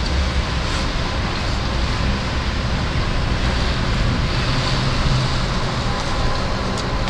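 Car driving slowly through an underground parking garage, heard from inside the cabin: a steady engine hum with tyre and road noise.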